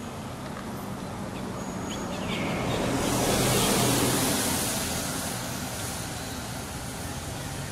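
A motor vehicle passing: a rushing noise with a low engine hum that swells to a peak about halfway through and then fades away.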